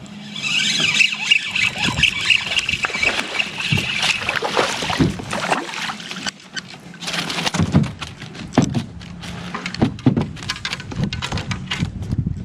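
Splashing and knocks on a fishing kayak as a bass is brought in and handled, with a steady high whine over the first four seconds.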